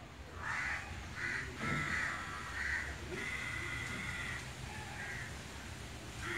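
Young kittens mewing, a string of high cries with one drawn out for over a second about three seconds in.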